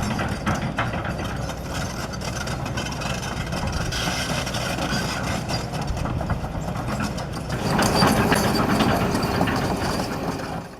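Kobelco SK200 excavator's diesel engine running steadily, growing louder under load for a couple of seconds near the end.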